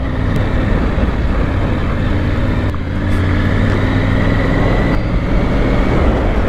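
Triumph adventure motorcycle's engine running steadily while riding a gravel trail, with wind rushing over the microphone and tyre noise underneath.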